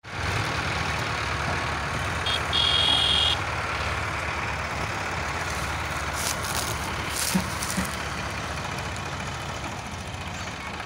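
Eicher 5660 tractor's three-cylinder diesel engine running steadily under load as it pulls a trailer heavily loaded with sugarcane. About two and a half seconds in, a short high tone sounds for under a second.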